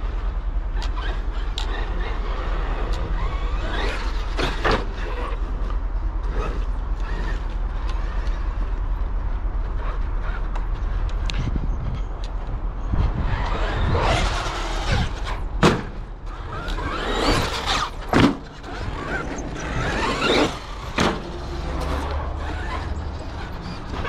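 Traxxas X-Maxx electric RC monster truck driving on skatepark concrete: its brushless motor whines and its tyres squeal in irregular bursts, louder and more frequent in the second half, with a few sharp knocks. A steady low rumble lies underneath.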